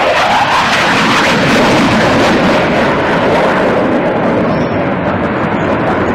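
Jet noise from an RAF Panavia Tornado ADV's twin RB199 turbofans on a display pass, a loud steady rushing roar. The high, hissing part of the sound dulls from about three seconds in as the jet climbs away.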